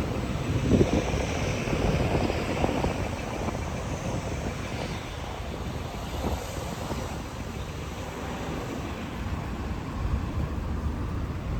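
Steady rumble of vehicle engines, as of street traffic, with no sharp events.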